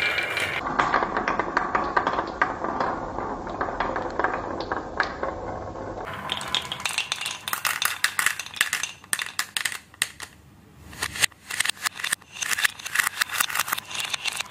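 Wooden balls rolling down wooden marble-run tracks. For the first several seconds it is a dense, continuous rattle. From about six seconds in it turns to separate sharp clicks and knocks as the balls hit each other and the wooden chute walls.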